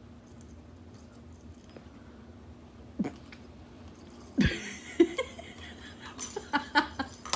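Plastic circular ball-track cat toy knocking and rattling as a cat grabs it and carries it in its mouth: a knock about three seconds in, then a louder thump and a run of clattering knocks, over a faint steady low hum.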